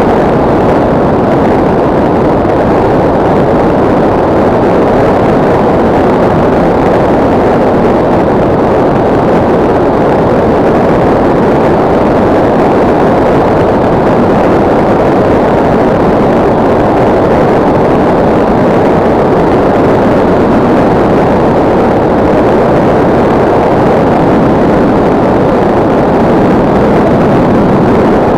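Loud, steady rush of air and buffeting on the onboard camera of a SkyCruise 2400 RC plane in flight, an even roar with no clear pitch that holds throughout.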